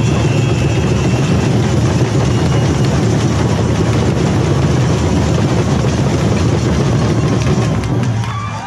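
Samba percussion band drumming loudly: a dense, driving mass of bass drums and snare drums that stops near the end.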